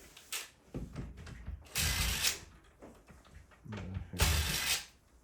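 Door lock mechanism being worked with a locksmith's metal tools to open a jammed latch: scattered metallic clicks and rattles, with two louder grating bursts about two and four seconds in.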